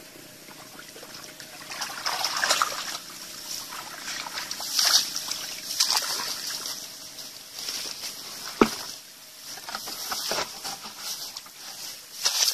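Hands groping through shallow muddy water, with irregular sloshes and small splashes, and one sharp click a little past two-thirds of the way in.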